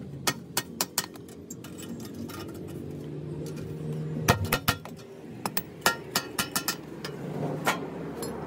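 Small hammer tapping a rusty steel sheet against a steel anvil block: sharp, ringing metallic clinks, about twenty light blows in quick irregular runs, with a pause of about two seconds after the first run.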